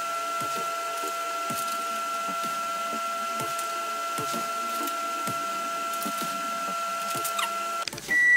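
A steady machine whine with a faint tick about once a second, cutting off suddenly near the end.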